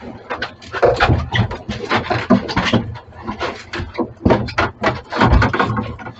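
Rapid, irregular knocking and thumping, many hard knocks a second with no steady rhythm.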